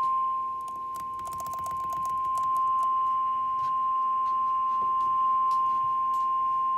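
NOAA Weather Radio warning alarm tone: one steady high-pitched beep held without a break, the signal that a warning broadcast follows. Faint crackles of static from poor reception sound over it.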